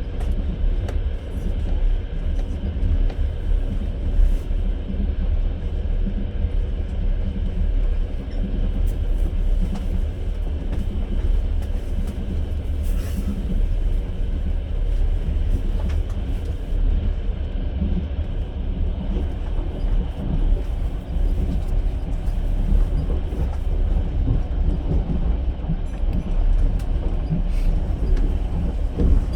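Passenger train in motion, heard from inside the carriage: a steady low rumble of wheels on rails, with a few faint knocks here and there.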